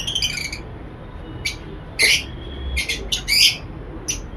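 Caged small parrots, lovebirds and budgies, chirping and squawking in short sharp calls, about half a dozen of them, the loudest about two seconds in and again about three and a half seconds in.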